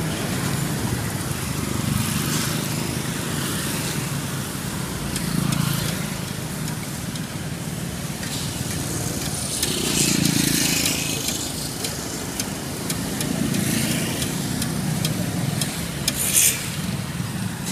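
Street traffic ambience: a steady low hum of passing vehicles, with a swell of hiss about ten seconds in and a brief, louder hiss near the end.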